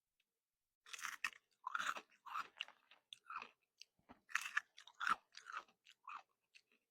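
Crystal candy being chewed: a run of crisp, irregular crunches that starts about a second in, with short pauses between bites.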